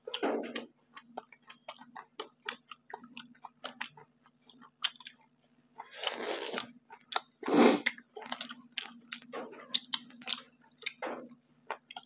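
Close-up eating sounds of two people eating with their hands: wet chewing, lip smacks and small crunches as meat is bitten off the bone, with two louder noisy bursts around six and seven and a half seconds in. A faint steady hum sits underneath.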